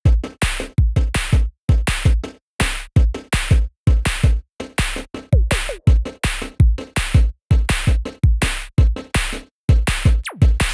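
Electronic intro music: a hard drum-machine beat with a heavy kick, short stop-start hits and synth sweeps.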